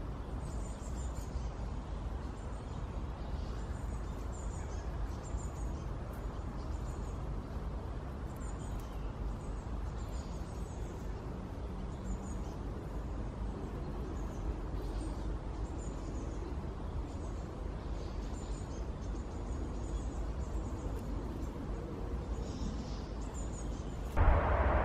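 Woodland ambience: a steady low rumble with faint, high bird chirps scattered through it. Near the end a louder rushing noise cuts in abruptly.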